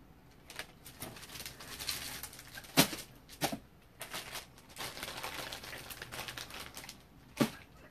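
Off-camera rustling and handling noise with scattered clicks and three sharp knocks, the loudest a little before three seconds in and another near the end.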